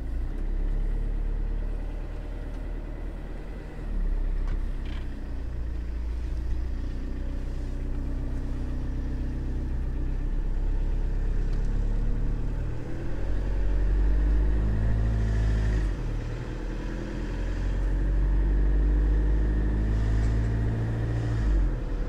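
Camper van engine and road noise heard from inside the cab while driving. There is a steady low rumble, and the engine note rises and falls a few times as the van speeds up.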